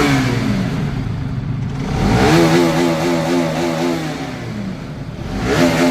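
Bajaj Pulsar RS200's single-cylinder engine revved on the stand through an exhaust with no silencer. A short blip at the start is followed by a rev that rises about two seconds in, holds and falls away, then another rise near the end. The sound is echoing loudly off the tunnel walls.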